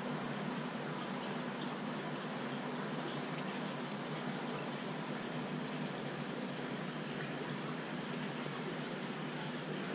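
Steady rush of moving water from a large aquarium's filtration and water circulation.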